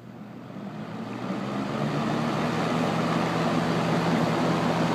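1976 Kmart (Lakewood) K-223 box fan, with its McMillan motor, starting up. The air rush and motor hum build over about two seconds, then run steadily. The motor's startup sound is kind of faint.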